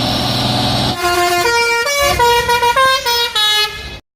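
A tour bus's basuri 'telolet' melody horn. After about a second of steady blare, it plays a quick tune of clear single notes stepping up and down, then cuts off suddenly near the end.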